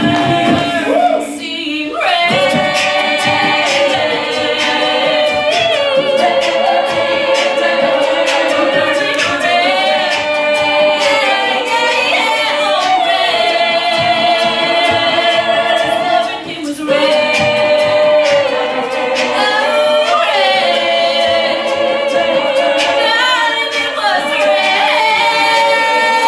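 All-female a cappella group singing a pop song: a lead female voice over the group's close sung harmonies. The sound drops out briefly twice, about a second in and about seventeen seconds in.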